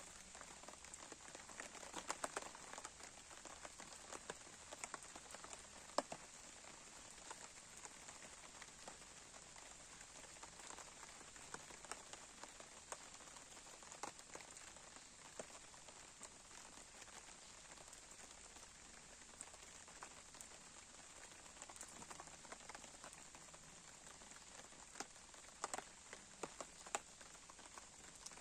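Campfire crackling quietly: a faint steady hiss with sharp pops at irregular intervals.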